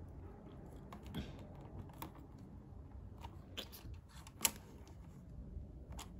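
Small plastic LEGO pieces clicking and tapping as they are handled and pressed onto the model: a handful of scattered light clicks, the sharpest a little past the middle.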